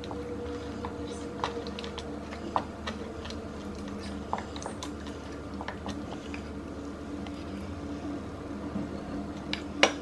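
A spoon stirring a thick creamy sauce in a glass jug, clinking and scraping against the glass in many light, irregular taps, with one louder clink near the end.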